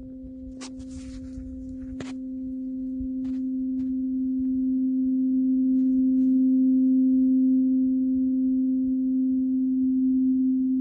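Large metal tuning fork ringing: one steady low hum with a fainter overtone an octave up, growing louder over the first six seconds or so. A few faint ticks about one and two seconds in.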